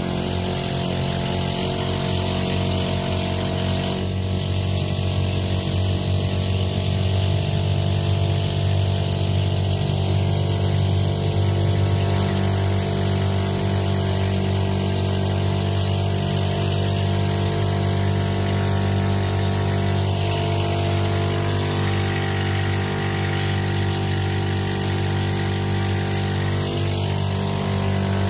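Inboard engine of a motorized outrigger boat (bangka) running at a steady cruising speed, heard from on board as a constant low drone.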